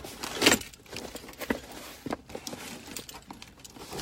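A cardboard shipping box being opened by hand: irregular rustling, crinkling and tearing of tape and packaging, with scattered small clicks and a louder tearing rustle about half a second in.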